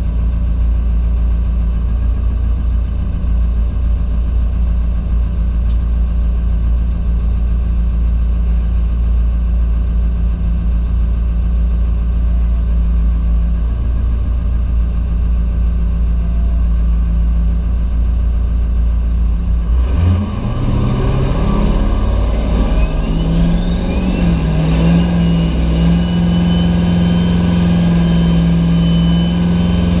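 Diesel drag truck's engine heard from inside the cab, idling steadily at the start line. About twenty seconds in it is brought up to a higher, held engine speed with a whine that climbs in pitch and then holds steady, the truck building up for its launch; right at the end the note begins to rise again.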